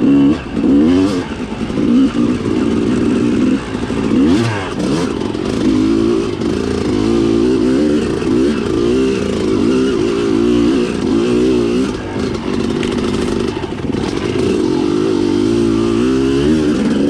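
Dirt bike engine revving up and down continuously as the bike is ridden over rough trail, with a few short knocks.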